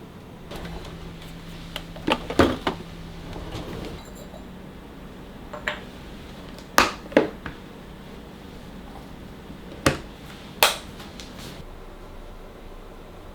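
Glassware and dishes being handled: a quick cluster of clinks and knocks about two seconds in, then single sharp clinks spread out over the rest, with a faint steady hum during the first few seconds.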